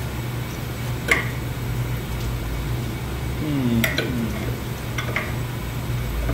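A steel pipe wrench clinks and clanks against a black iron pipe nipple as its jaws are fitted on, with a brief squeak of metal on metal in the middle. The loudest clank comes about a second in. Under it all runs the steady low hum of boiler-room equipment.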